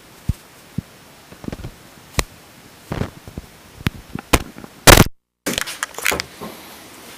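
Small objects being handled on a desk: scattered clicks and knocks, with a loud handling crackle just before the middle. Right after it the sound drops out completely for a moment.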